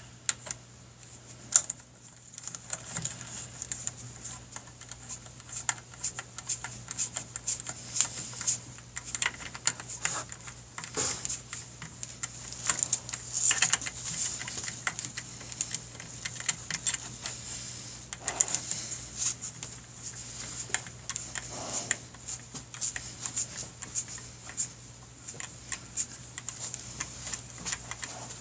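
Socket ratchet clicking in irregular runs as clutch spring bolts are turned in by hand, over a faint steady low hum.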